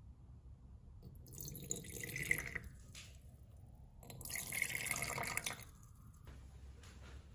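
Liquid poured into a small container twice, each pour lasting about a second and a half, with a splashing, trickling sound.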